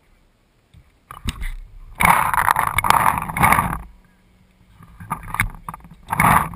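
Handling noise from a camera mounted on a paintball marker as the marker is picked up and moved: rough rubbing and scraping against the microphone in two loud stretches, the first about a second in and lasting some three seconds, the second shorter near the end.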